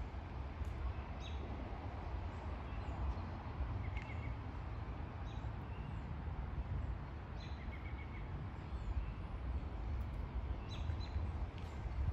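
Woodland birds chirping now and then, short high calls and a couple of brief trills, over a steady low rumble.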